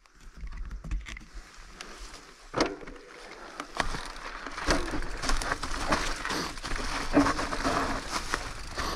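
Mountain bike rolling over dry fallen leaves and a stony dirt trail: crunching tyre noise with many small clicks and rattling knocks, getting louder and busier about halfway through.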